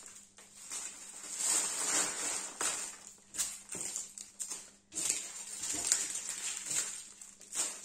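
Plastic crinkling and rustling in irregular bursts: small plastic sachets of diamond-painting drills being stuffed into a crammed 3-litre plastic bag.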